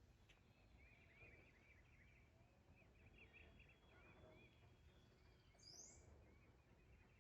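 Very faint outdoor ambience of a small bird chirping in a quick run of short, high notes, over a low background rumble.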